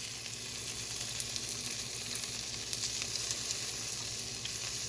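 Jalapeño slices and cheese sizzling on the hot plates of a small Dash waffle maker: a steady hiss with scattered small crackles.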